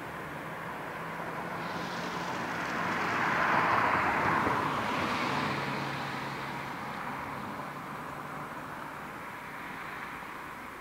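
A vehicle passing by: a rush of noise swells to a peak about four seconds in and fades away, and its low hum drops in pitch as it goes past.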